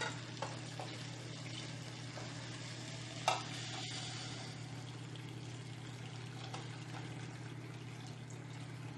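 Chicken stock poured through a perforated aluminium strainer onto rice sautéed in a hot pot, splashing and sizzling steadily. A sharp metallic clink sounds about three seconds in.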